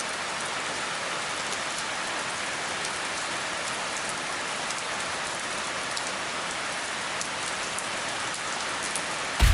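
Steady rain falling into shallow standing water, with individual drops splashing.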